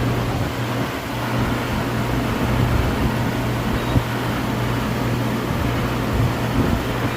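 Steady mechanical running noise with a constant low hum, typical of machine-shop equipment running.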